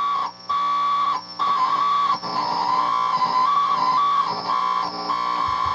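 Hand-built Dumble Overdrive Special clone tube guitar amp squealing at high volume: a steady high-pitched whistle that wavers slightly in pitch and cuts out briefly several times. Touching the output transformer changes the squeal, which the builder takes as a sign that the output transformer may be faulty.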